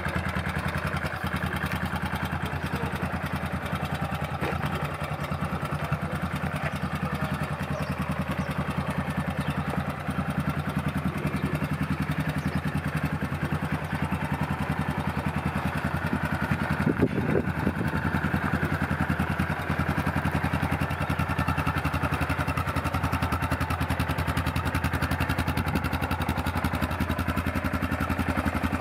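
Yamaha Ultramatic 450 quad bike's single-cylinder four-stroke engine idling steadily, with one brief louder moment about two-thirds of the way through.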